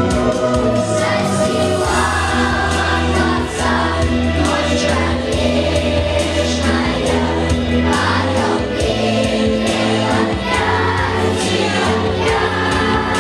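A choir singing a song with instrumental backing, voices in unison over steady sustained chords.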